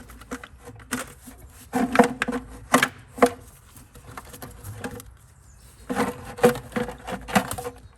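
Clusters of knocks and clatter from car parts being handled, in two bursts: one about two seconds in and another near the end.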